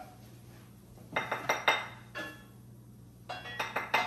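A cooking utensil clinking and scraping against a pan of sautéing vegetables, in two quick clusters of clinks with a brief metallic ring, about a second in and again near the end.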